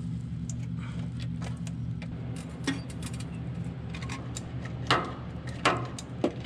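Metal clicks and clinks from handling a flexible metal exhaust tube and fittings and tightening hose clamps on a diesel heater's lines, sparse at first and sharper near the end, over a steady low hum.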